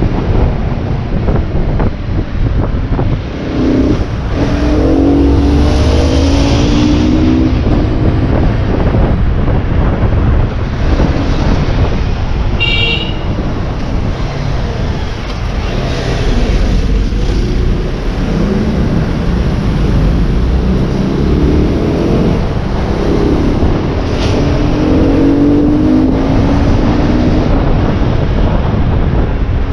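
Motorbike engine pulling away and accelerating, its pitch rising in steps as it goes up through the gears twice, over a constant rush of wind noise. A short high-pitched beep sounds about halfway through.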